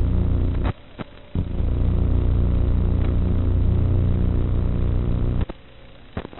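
A steady low buzz with many overtones, engine-like. It cuts out sharply at just under a second, comes back about half a second later, and stops again about a second before the end, with clicks at the breaks.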